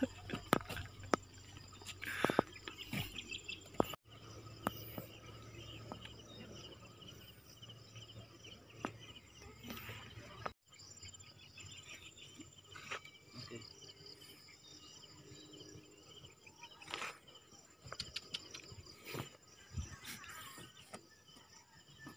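Rural outdoor ambience: a steady high insect chirring from the grass, with scattered small knocks and rustles. The background changes abruptly twice, about four seconds in and again near the middle.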